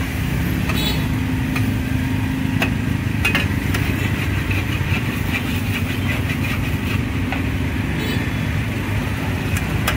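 Motorbike engines running close by as they pass, a steady low rumble with a hum, while a metal spatula scrapes and clinks on a large steel frying pan a few times over a light sizzle of frying noodles.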